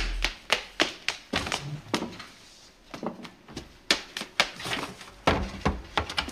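Theme music cuts off about a quarter of a second in. After it comes a run of irregular sharp knocks and clicks, the clatter of things being handled and set down in a kitchen.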